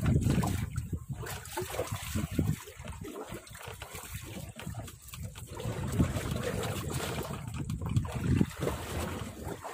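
Water splashing and trickling as a large tuna, held by the tail, is dipped and swished in the sea, with gusts of wind rumbling on the microphone.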